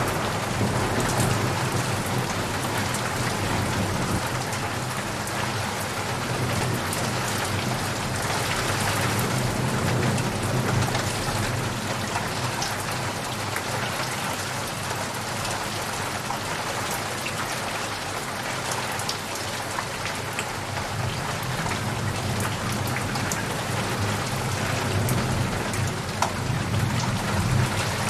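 Steady rain falling, an even hiss of many drops. A roll of thunder is dying away at the start, and low rumbles of thunder swell again near the end.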